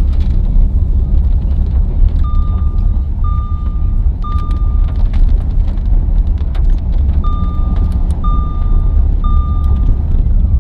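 Steady low rumble inside a car cabin, with the car's warning chime beeping: a high single-pitch beep about once a second, each just under a second long, in runs of three separated by pauses.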